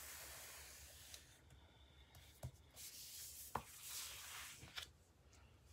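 Faint rubbing and rustling of paper as hands press down and slide patterned paper strips and the cardstock page across a tabletop, with a few light taps. A longer sliding rustle follows a few seconds in as the page is swung round.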